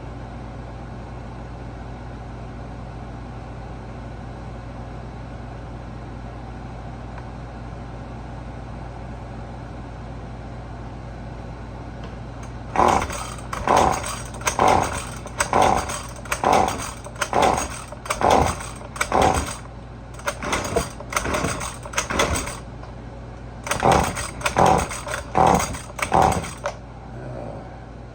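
Husqvarna 128LD string trimmer's two-stroke engine being cranked by its recoil pull-starter, about one pull a second: roughly a dozen pulls, a short pause, then four more, and it does not catch. The owner suspects the engine is flooded.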